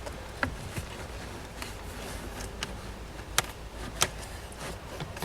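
Scattered light clicks and knocks, about five in all with two sharper ones near the end, as the instrument cluster is handled and worked into the dashboard, over a low steady background rumble.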